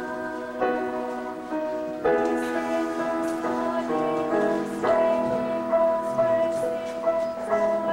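Girls' vocal ensemble singing slow, held chords that change every second or two, with piano accompaniment.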